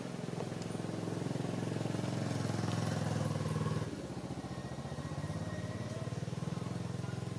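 An engine running steadily with a low pulsing hum; its revs ease off about four seconds in.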